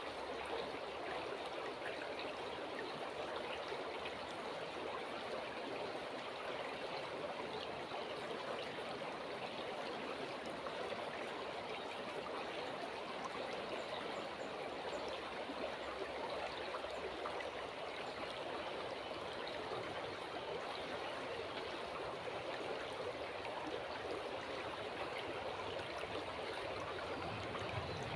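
River water flowing, a steady, even rush of water that doesn't change.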